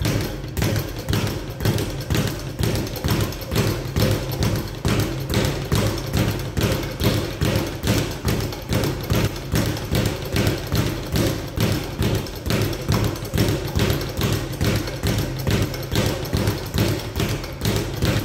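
Speed bag being punched in a fast, steady rhythm, the bag thudding against its rebound platform in a rapid run of hits.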